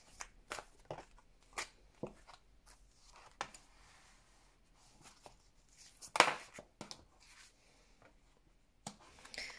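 Tarot cards being drawn off the deck and laid on a table: a scatter of soft clicks, taps and slides of card on card and card on tabletop, with one sharper slap about six seconds in.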